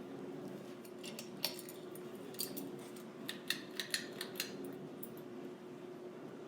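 Quorum Venture ceiling fan motor humming steadily on low speed, with several sharp metallic clicks and ticks from about a second and a half to four and a half seconds in.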